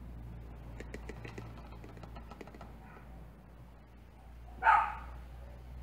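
Motor oil being poured from a plastic quart bottle through a funnel into the engine's oil filler, with light clicks and taps from handling the bottle and funnel. One short, loud sharp sound comes near the end.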